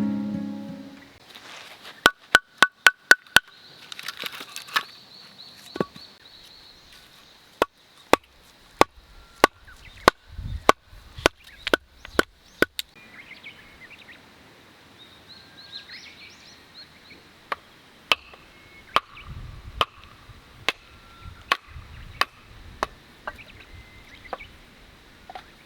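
Knife chopping on a cutting board: a quick run of five strokes, then slower, steady strokes about two a second, thinning out toward the end. Birds chirp faintly in the background.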